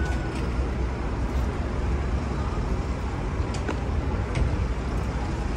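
City street traffic noise: a steady low rumble of passing road vehicles.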